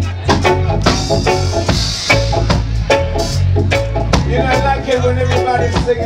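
Live reggae band playing: a steady bass line under a drum beat and hand percussion, with chords from a Roland Juno-Di keyboard.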